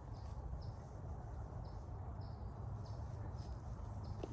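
Outdoor ambience: a steady low rumble with short high chirps repeating about twice a second, and one soft knock near the end.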